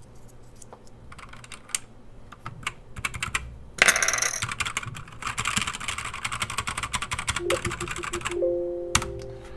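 Keychron K4 mechanical keyboard with LK optical switches being typed on: a few scattered keystrokes, then about four seconds of fast, hard typing as a dense run of clicks. A few short steady tones sound near the end.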